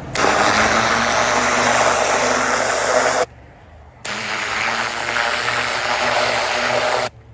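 Pressure washer with an oscillating tip blasting water into garden soil in two spells of about three seconds each, with a short break between them. The machine's engine hum runs on underneath through the break.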